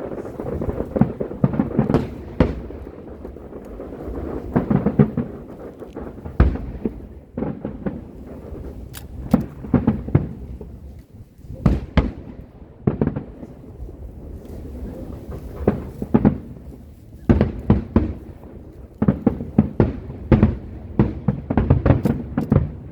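Aerial fireworks going off: many sharp bangs and booms in irregular volleys, each followed by a low rolling rumble.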